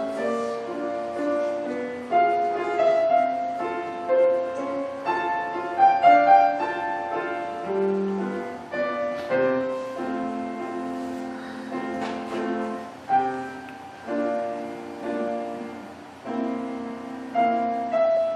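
A grand piano played solo: a melody over chords, notes struck one after another and fading, with the loudness swelling and falling phrase by phrase.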